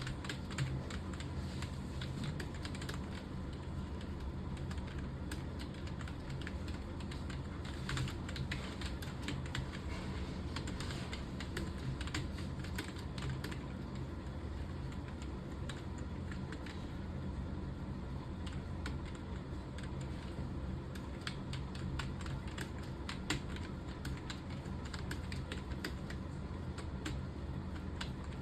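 Rapid, continuous typing on a computer keyboard, irregular key clicks with no pauses, over a steady low hum.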